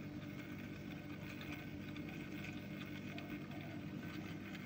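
Small motorized rotating display turntable running: a steady low hum with faint, irregular light ticks.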